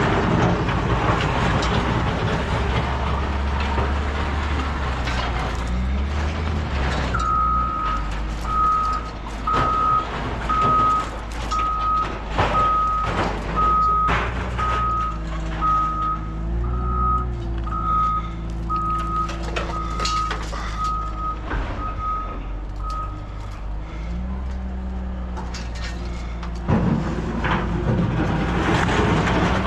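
A heavy vehicle's engine running while its back-up alarm beeps steadily, a single high tone repeating about three times every two seconds, for about sixteen seconds; the engine is louder at the start and again near the end, with a few clanks.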